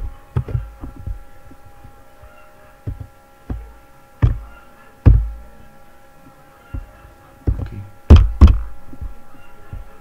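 Scattered thumps and clicks of computer keys and mouse buttons, picked up by the computer's own microphone, over a steady electrical hum. The loudest thumps come about four and five seconds in, and a close pair comes about eight seconds in.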